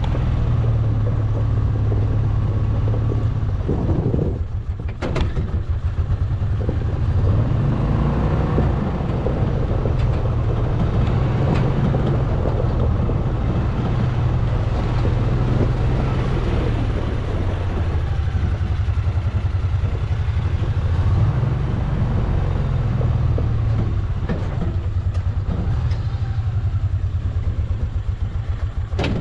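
Engine of a Mule utility vehicle running steadily as it drives along, with a low rumble and some rattling.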